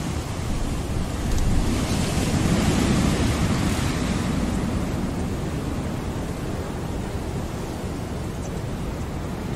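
Ocean waves ambience: a steady wash of surf that swells about a second and a half in and slowly eases off again.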